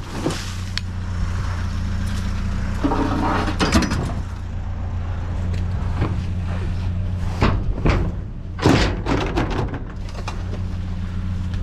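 Rummaging through junk in a dumpster while pulling out scrap wire: scattered clanks and rattles, loudest about two thirds of the way in, over a steady low hum.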